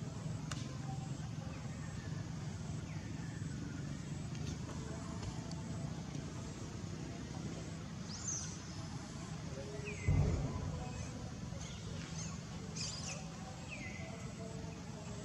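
Steady low outdoor rumble with a few short, high chirps that fall in pitch, and a dull bump about ten seconds in.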